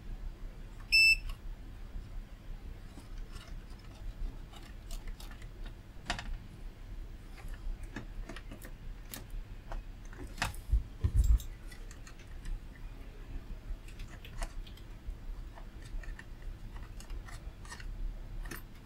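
A short electronic beep about a second in, then sparse light clicks and taps from soldering work on a circuit board, with a dull knock a little past halfway, over a faint steady hum.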